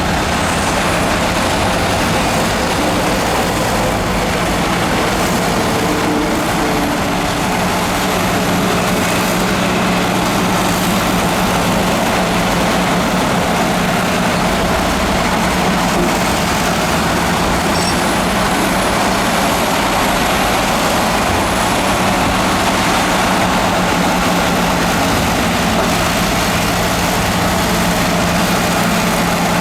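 Heavy earthmoving machinery's diesel engine running steadily with a constant low drone. Faint high-pitched whines rise and fall about a second in and again just after the middle.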